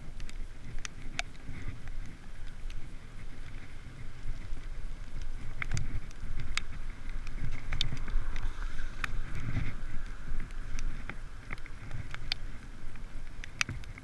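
Wind buffeting the microphone in an uneven low rumble, with scattered sharp clicks and ticks throughout.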